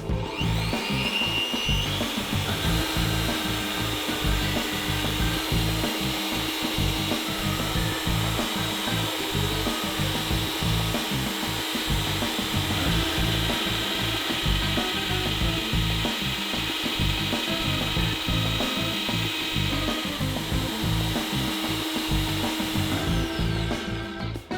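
Bosch PBD 40 bench drill press spinning up with a rising whine, then running steadily as the bit drills into wood. It winds down near the end.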